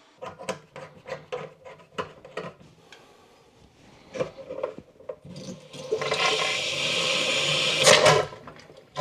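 A few handling clicks and knocks from the washer supply hose, then from about six seconds in water rushes hard through the newly installed washing-machine shut-off valve and hose to bleed the trapped air from the line, with a surge near the end and a brief break just before it.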